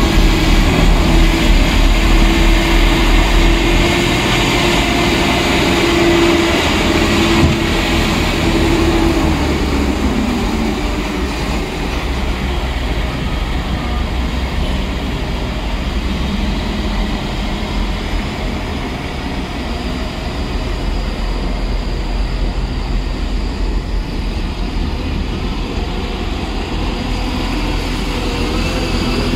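Heavy diesel machinery at work: Caterpillar wheel loaders and a loader-mounted Larue snow blower running steadily. A droning tone from the machines slides down in pitch and fades about ten seconds in.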